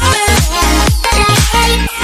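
Background music: upbeat electronic dance track with a steady beat and heavy bass.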